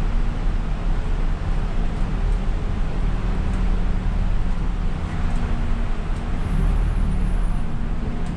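Inside the cab of an Isuzu Erga city bus on the move: a steady low engine hum and tyre noise on a rain-soaked road.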